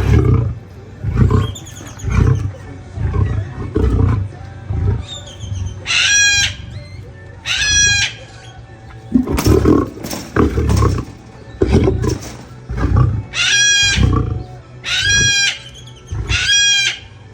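Lion giving repeated low, loud grunts, about one a second. From about six seconds in, a bird gives a high, ringing call several times over it.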